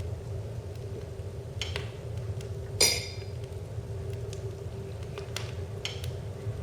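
A wood fire crackling with a few sparse sharp pops, and one louder ringing clink about three seconds in, over a steady low hum.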